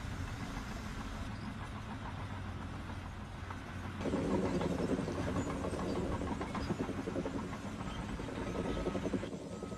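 A large engine running, steady at first, then louder with a fast, rough flutter from about four seconds in.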